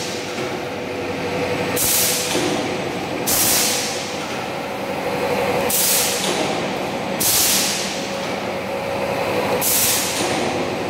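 DIN rail roll forming machine running with a steady mechanical hum, broken five times by a loud hiss lasting under a second, about every one and a half to two and a half seconds.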